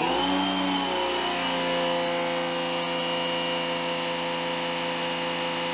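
Giraffe Tools Grandfalls electric pressure washer starting up, its motor whine rising over about the first second and then running steady under load, drawing about 14 amps.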